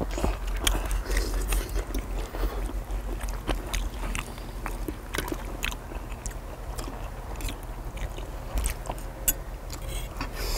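People chewing and biting food close to the microphone, with metal forks and knives clicking and scraping against a cast-iron griddle at irregular moments.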